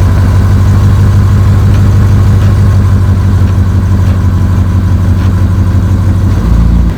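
Jaguar XF's engine idling steadily, loud and close; the engine note changes near the end.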